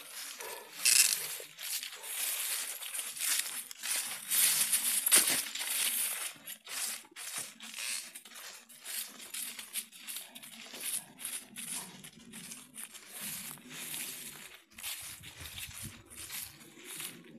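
Footsteps through thick dry fallen leaves: an irregular, continuous crunching and rustling, loudest during the first six seconds.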